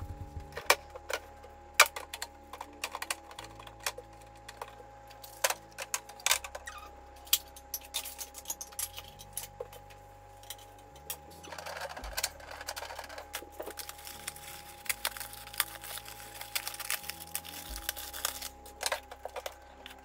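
Background music with a slow-changing bass line, over irregular clinks, clicks and knocks of household items being handled. A stretch of hissing noise runs from a little past halfway until near the end.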